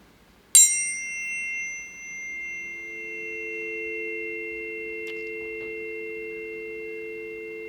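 Planetary tuning forks sounded for the Venus–Chiron conjunction. A fork is struck about half a second in with a bright metallic ping, its high overtones fading while two clear high tones ring on. About two seconds later two lower, steady tones join and hold together.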